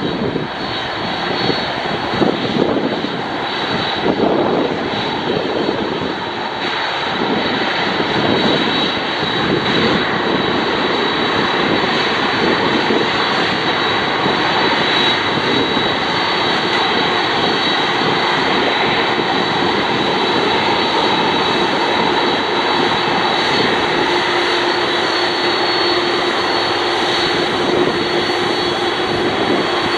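Boeing 747-400 freighter's four jet engines running at low power as it taxis onto the runway: a steady jet roar with a high whine, joined by a lower steady tone about two-thirds of the way through.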